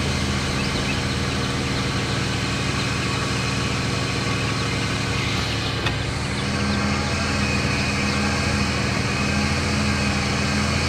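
Small car's engine running steadily, heard from inside the cabin as an even low hum. A brief click comes about six seconds in, and the engine note grows a little stronger after it.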